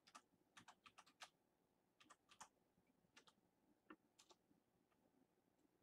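Faint, irregular clicking of keys being typed on a keyboard, in short uneven runs that stop about three-quarters of the way through.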